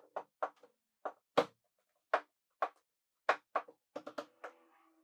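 A quarter-inch steel plate being set down and shifted on a wooden workbench top: a series of irregular sharp knocks and clanks, the last one ringing briefly near the end.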